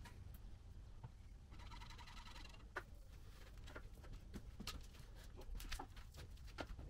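Faint scattered taps and knocks of glass door units and tools being handled. About one and a half seconds in, a brief rapid chattering squeak lasts about a second.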